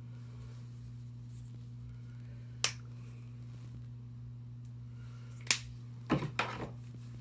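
Plastic acrylic craft-paint squeeze bottle being handled: two single sharp clicks about three seconds apart, typical of its flip-top cap snapping, then a quick run of smaller clicks and knocks near the end, over a steady low hum.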